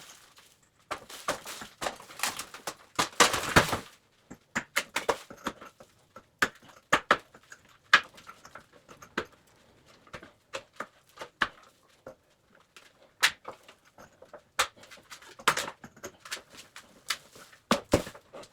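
Wall demolition by hand: a few seconds of scraping and crumbling as wall material is pulled away, then irregular knocks and clatters of debris dropping.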